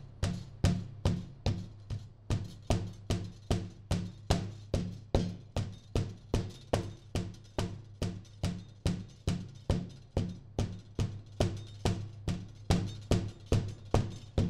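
Metal meat mallet pounding slices of veal through plastic wrap on a cutting board, a steady run of strikes about three a second, over background music.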